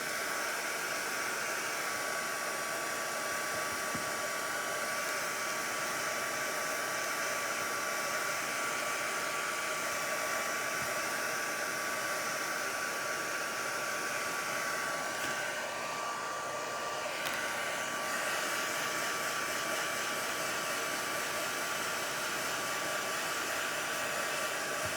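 Hand-held hot-air dryer blowing steadily, a high whine over a rush of air, drying freshly applied thick acrylic paint.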